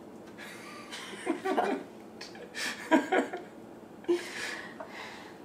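A man and a woman laughing in a few short bursts, about a second in and again around three seconds, with a fainter one near the end.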